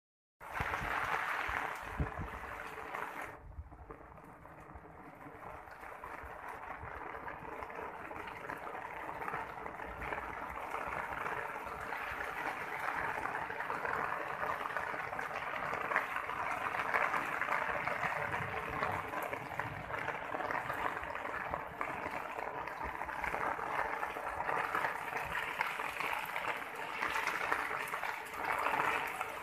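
Steady rush of water falling and splashing onto a helmet and car hood in a rain test. It drops off suddenly about three seconds in, then gradually builds back up.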